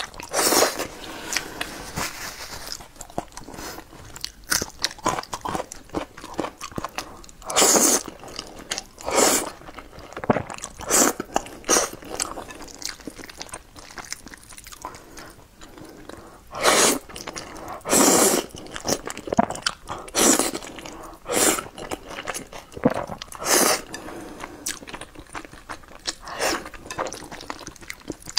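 Close-miked eating of wide, flat noodles in chili sauce: wet chewing and mouth clicks throughout, with about eight louder slurping mouthfuls spread through.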